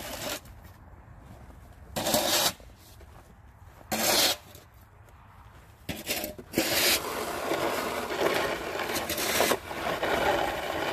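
Plastic snow shovel scraping across pavement: two short scrapes, then a longer push lasting several seconds as the blade drives a load of snow along the ground.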